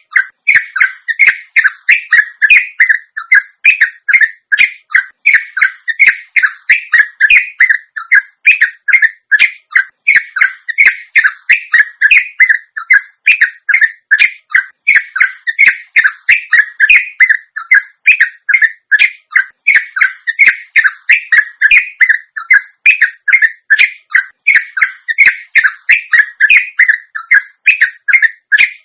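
Yellow-vented bulbul (trucuk) singing a long, unbroken chattering run of rapid short notes, several a second, the continuous 'ropel' song used as a lure to provoke other trucuk birds into singing.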